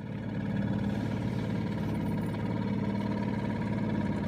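Small fishing boat's outboard motor running steadily, an even engine hum that fades up just after the start.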